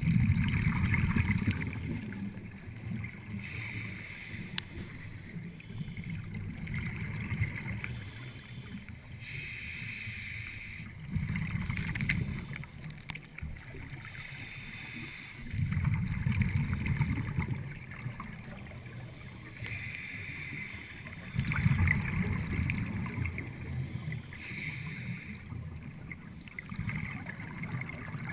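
Scuba diver breathing through a regulator underwater: a hiss on each inhale alternating with a low rumble of exhaled bubbles, repeating about every five to six seconds. Heard through the GoPro's underwater housing.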